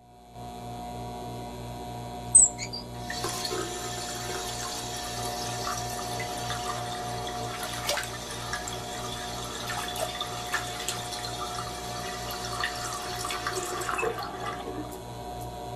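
Steam hissing and rushing from geothermal fumaroles, with hot water gushing and bubbling, over a steady low hum. There is a single sharp click about two seconds in.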